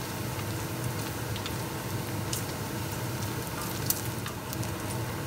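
Diced bacon sizzling in its own rendered fat in a stainless steel pot: a steady hiss with scattered sharp crackles and pops, the sharpest about four seconds in. Most of the water has cooked off, so the bacon is frying in its fat and turning golden.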